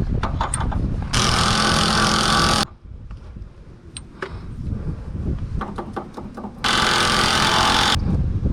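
A power tool running in two bursts of about a second and a half each, some five seconds apart, starting and stopping abruptly, with light clicks and clinks of parts being handled between the bursts.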